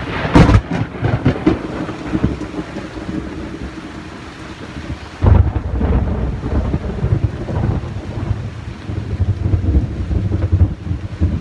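Close thunder in a tropical downpour: a sharp clap right at the start, then a second sudden clap about five seconds in that rolls on as a long low rumble. Heavy rain hisses throughout.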